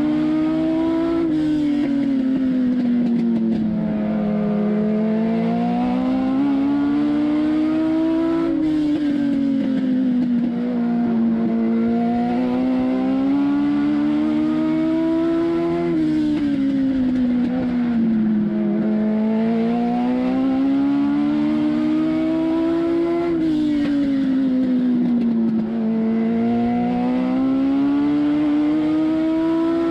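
INEX Legend car's Yamaha four-cylinder motorcycle engine racing, heard from inside the cockpit. The engine note climbs on each straight, drops sharply as the driver lifts for each turn, and sags through the corner before climbing again, about every seven seconds.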